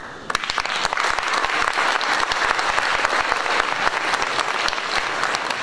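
Audience applauding: many hands clapping, breaking out just after the start and going on steadily.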